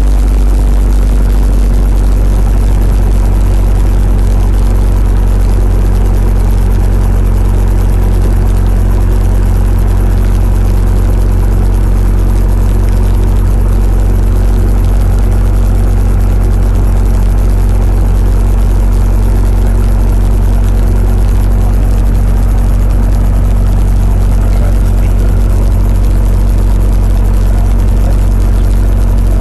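Robinson R22 Beta II helicopter's four-cylinder Lycoming O-360 piston engine running steadily, with the main rotor turning overhead, heard from inside the open cabin. The sound is loud and even, with a low tone that drops away about a second in.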